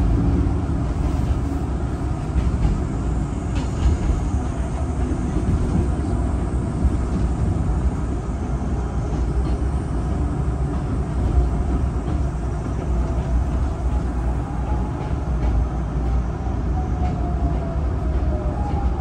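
Hakone Tozan Railway train running, heard from inside the carriage: a steady low rumble of the wheels on the rails. A faint squeal glides down in pitch over the last few seconds.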